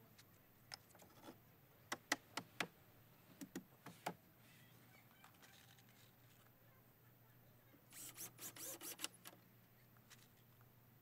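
Faint, scattered knocks and clicks, then a short burst of rapid ticking about eight seconds in.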